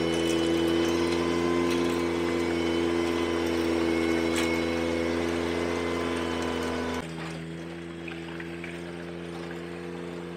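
Ventrac 4520Z compact tractor running steadily with its power rake attachment churning through gravel, with a few faint gravel clicks. About seven seconds in, the sound drops suddenly to the same machine heard quieter and farther off.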